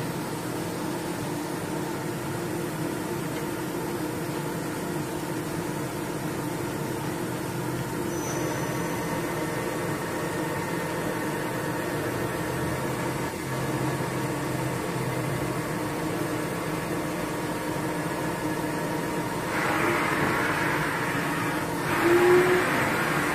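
Samsung MCV-50 vertical machining center running a program: a steady machine hum with several tones. Higher tones join about a third of the way in, and it grows louder, with a short rising tone, a few seconds before the end.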